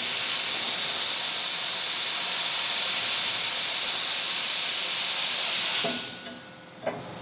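CNC plasma cutter hissing steadily as it cuts 10 mm steel plate, then dying away about six seconds in, followed by a single click.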